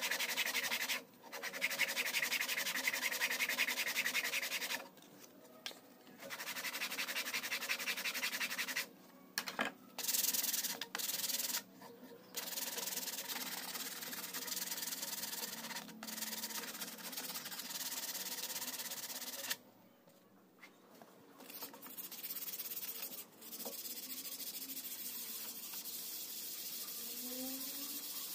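Sandpaper rubbed by hand over a carved wooden spoon, a dry scratchy hiss in spells of a few seconds with short pauses between.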